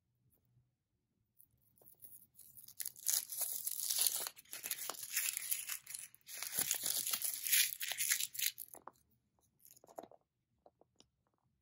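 A chocolate egg's wrapper being torn open and crinkled: a run of loud, close crackling and tearing for about six seconds, followed by a few soft taps.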